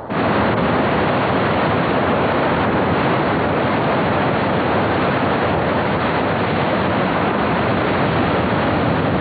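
Loud, steady rushing of whitewater rapids on a steep glacial river, an even unbroken wash of water noise that cuts in suddenly at the start.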